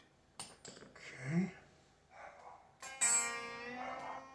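A few light metal clicks of a wrench at the guitar's bridge, then one note plucked on a Telecaster's B string about three seconds in, ringing and slowly fading, as the tuning of a B-bender set slightly sharp is checked.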